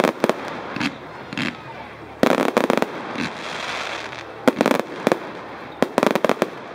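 Aerial fireworks bursting: repeated sharp bangs in clusters, with a dense rapid run of bangs about two seconds in and further groups near the middle and end.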